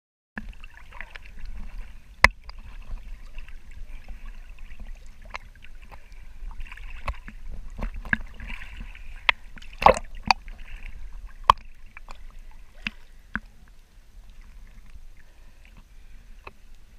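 Water sloshing and lapping around an action camera held at the surface, with a low rumble and scattered sharp splashing knocks. The loudest knocks come about two seconds in and around ten seconds in.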